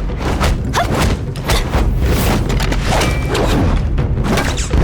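Animated fight sound effects: a quick run of heavy impacts and booms, one after another, over a deep rumble and background score.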